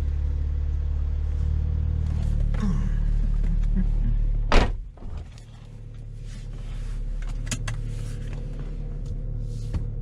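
BMW N54 twin-turbo inline-six idling steadily, freshly cleaned Vanos actuators and new oil having cured its rough idle. About halfway through a car door shuts with one loud thud, and after it the idle is heard more muffled from inside the cabin, with a few small clicks.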